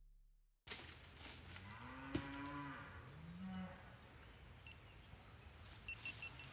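A cow mooing in two low calls, the second rising in pitch, with a single sharp crack about two seconds in. A faint electronic tone stops just before.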